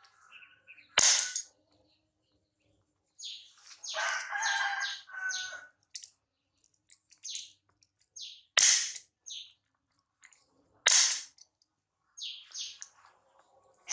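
Short, high-pitched chirps and squeaks, with a longer squealing call a few seconds in, broken by three sharp cracks that are the loudest sounds: about a second in, past halfway, and again about two seconds later.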